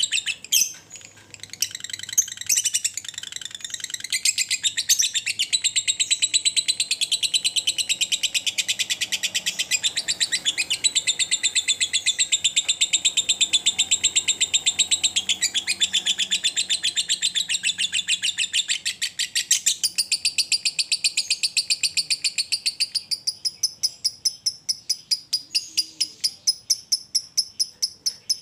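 Caged monochrome lovebird 'ngekek', its long continuous chatter: an unbroken run of fast, high, evenly repeated chirping notes that goes on without a pause.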